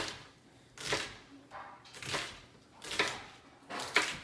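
Kitchen knife chopping through an onion onto a cutting board: about five separate chops, roughly one a second.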